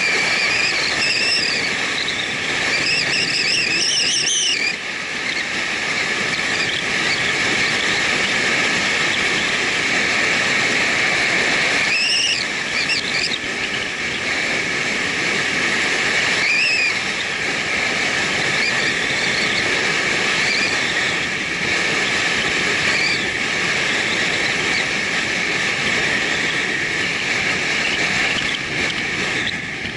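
Steady running noise from a motorcycle riding along an asphalt road, engine and wind mixed together, with a strong constant whine. A few short, high, warbling whistles rise and fall over it: in the first few seconds, and again about 12 and 16 seconds in.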